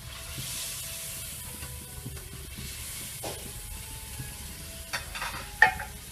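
Milky liquid poured in a thin stream into an aluminium pot, a soft splashing hiss, followed by a few short knocks. The loudest is a sharp knock near the end.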